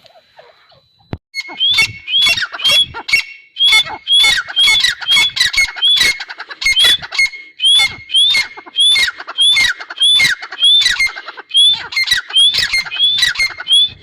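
Grey francolin calling: after a short quiet start, a long run of loud, sharp, repeated notes, about two to three a second, each with a quick rising hook.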